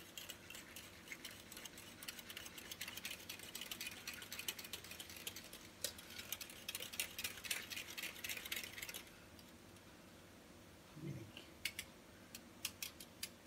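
Wire balloon whisk spun back and forth between the palms in a mug of hot milk and coffee: a fast, faint clicking and rattling of the wires against the mug as the milk froths up. It stops about nine seconds in, and a few light clicks come back near the end.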